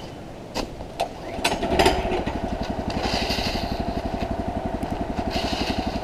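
Woodland Mills HM126 sawmill's Kohler engine catching about two seconds in, then running steadily with a fast, even firing pulse.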